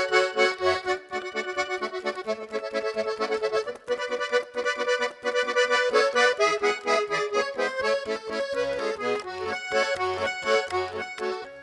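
Garmon, the Russian button accordion, playing an instrumental passage of the romance melody over a regular oom-pah bass-and-chord accompaniment.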